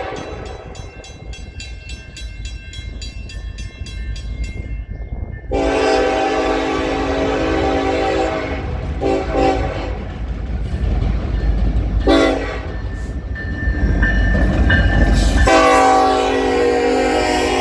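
Locomotive air horn sounding a pattern of blasts, first a long one, then a few short toots, then another long blast near the end, over the steady rumble of a passing train.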